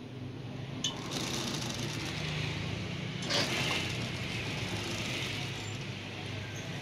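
Shiang Wang industrial sewing machine stitching binding tape onto a mattress edge: a steady motor hum, with rapid needle chatter that starts about a second in and eases off near the end.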